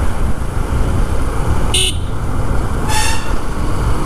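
Steady low rumble of riding noise from a Yamaha FZ motorcycle on the move, with two short horn toots about two seconds and three seconds in, the second a little longer.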